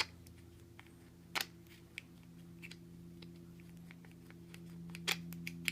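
Faint clicks and ticks of pliers working the small metal friction-lock plate out of a polymer Magpul MOE CTR buttstock: one sharp click about a second and a half in and a few more near the end, over a steady low hum.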